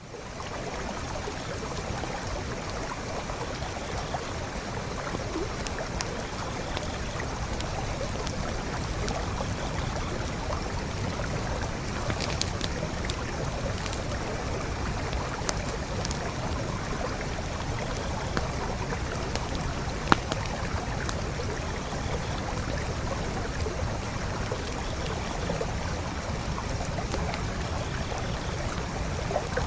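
Forest creek water flowing steadily, with scattered sharp crackles and pops from a wood campfire, one louder pop about two-thirds of the way through.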